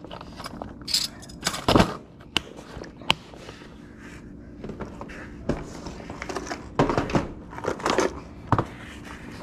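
Clear plastic tackle boxes being handled, shifted and lifted: scattered clicks, knocks and rattles of plastic and the lures inside, with some rustling in between.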